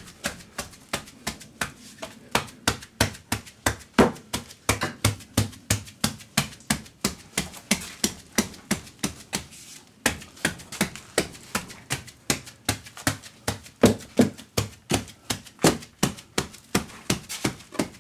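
A hoe blade tapping down a wet mortar-mix shower pan bed in steady strikes, about three a second, packing the mud down to squeeze out voids.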